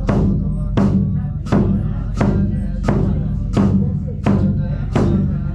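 Tibetan Buddhist monks chanting in a steady low drone, with a large monastery frame drum struck at an even, slow beat, about one stroke every 0.7 seconds, each stroke ringing on.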